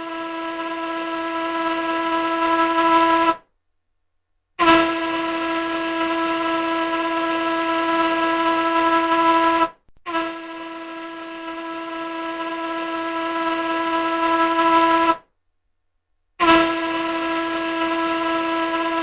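Large ship's horn sounding a series of long blasts of about five seconds each, separated by short gaps. Each blast is held at one steady pitch with a hissy edge.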